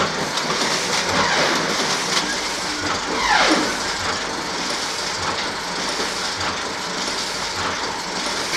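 Heidelberg Cylinder letterpress printing press running, a steady mechanical clatter, with a brief falling squeal about three seconds in.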